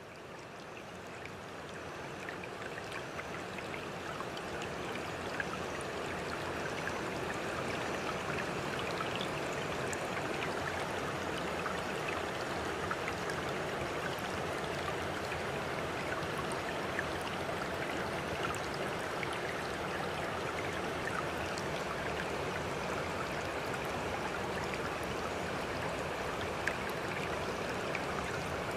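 Steady rushing of running water, like a stream, fading in over the first several seconds and then holding level, with faint small ticks scattered through it.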